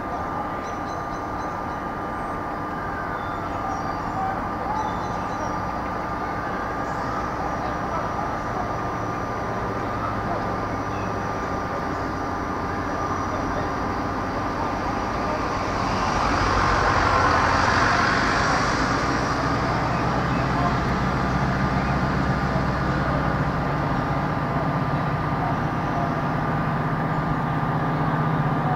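Class 071 diesel-electric locomotive approaching slowly, its EMD two-stroke diesel engine running and growing louder toward the end over a steady background hum. A louder rushing noise swells and fades about two-thirds of the way through.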